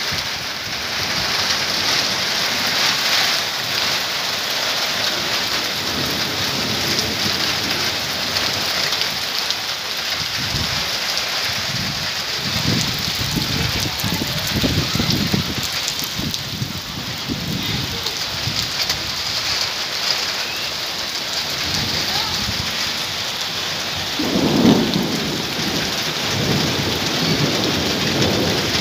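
Heavy rain falling steadily on the ground and on roofs, with several low rumbles through it and the loudest one near the end.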